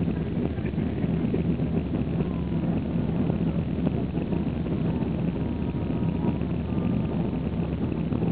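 Steady low engine and airflow noise of a jet airliner, heard inside the passenger cabin as it climbs after takeoff.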